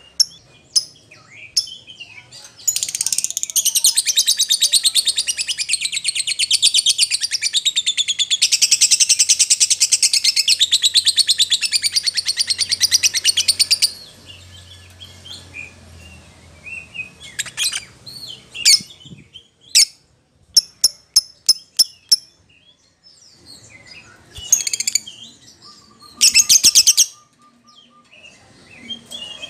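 Lovebird singing in an excited fighter's 'emosi' style: a long, very fast chattering trill for about eleven seconds, then a string of short sharp chirps and two brief chattering bursts near the end.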